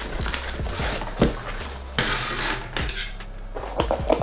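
Cardboard packaging of a figure box being handled and opened: cardboard rubbing and sliding, with a sharp knock a little over a second in, then a few quick clicks near the end as scissors are worked at a box flap.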